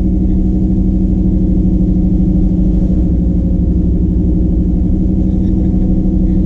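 Cammed Chevy C10 pickup engine and exhaust droning at a steady pitch while cruising, heard from inside the cab.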